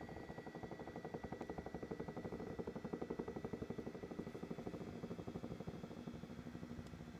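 Doctor Air 3D massage seat running, its massage mechanism making a fast, even pulsing with a thin steady high tone above it. This is the abnormal noise (異音) that the owner is recording the seat for.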